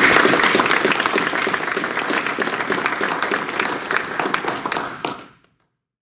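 Audience applauding, a dense patter of hand claps that thins out and fades away, cutting to silence a little after five seconds in.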